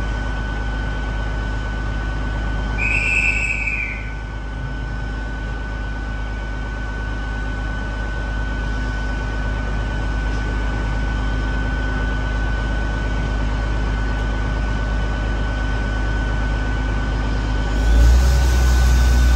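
Great Western Railway Hitachi bi-mode InterCity Express train standing at the platform, its underfloor diesel engines running with a steady low rumble and a steady high whine. A short high chirp sounds about three seconds in, and near the end the engine rumble grows louder.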